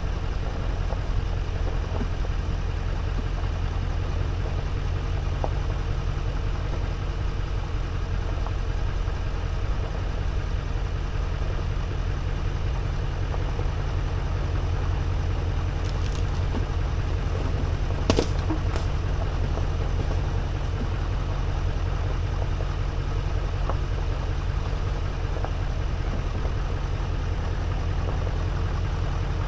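Truck driving slowly on a dirt forest road: a steady low engine and road rumble, with a few knocks about two-thirds of the way through.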